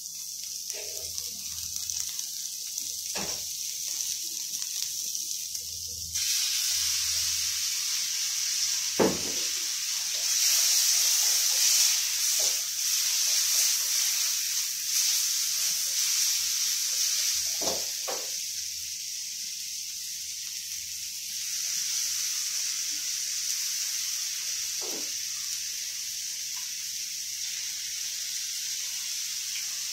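Stir-fry sizzling in a hot wok, a steady hiss that grows louder about six seconds in. A few short knocks come from the stirring utensil striking the wok.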